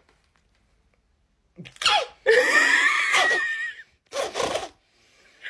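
A person screaming: a short sharp cry, then a loud, wavering scream lasting about a second and a half, and a brief cry after it.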